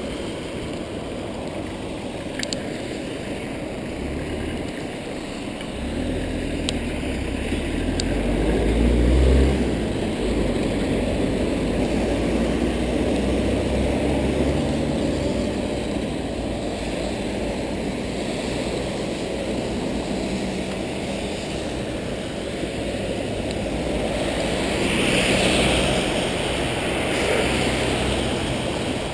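Street traffic and road noise on a wet road, heard from a moving bicycle: a steady hiss, with a low rumble swelling about nine seconds in and a brighter hiss rising and fading near the end.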